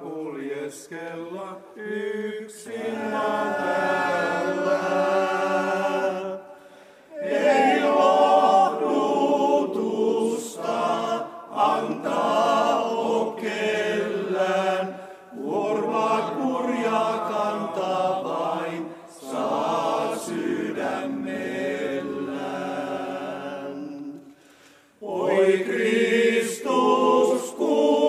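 Men's choir singing a hymn a cappella, in long sustained phrases with short breaks between them.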